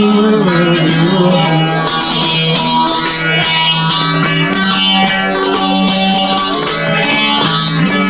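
Bağlama (long-necked Turkish saz) playing an instrumental semah tune, a running plucked melody over a steady held low note.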